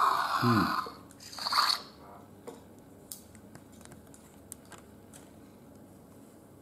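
Electronic roar from a Hasbro Jurassic World Dilophosaurus toy, set off by pulling its tail down: a short noisy sound for about the first second, then a second brief burst. After that come faint clicks of the plastic figure being handled.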